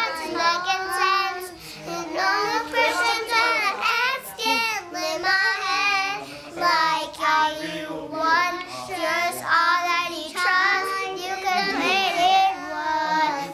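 Two young girls singing a pop song together, their voices wavering in pitch as they hold the notes.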